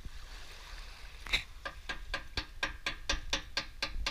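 Faint water lapping, then a music track with a steady drum beat of about four strokes a second fades in a little over a second in.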